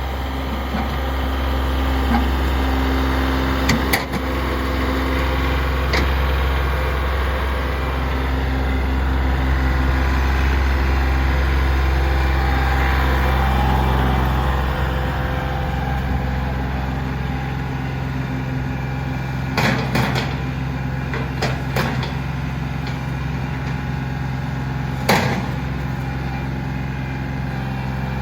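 John Deere 2032R compact tractor's three-cylinder diesel engine running steadily, with several sharp clanks and knocks from the front loader bucket working against a rock wall.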